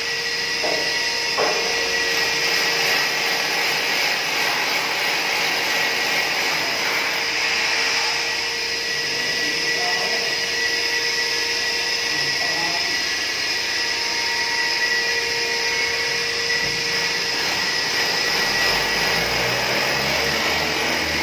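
A steady machine-like whir with a faint held whine, unchanging throughout, and a low rumble added near the end.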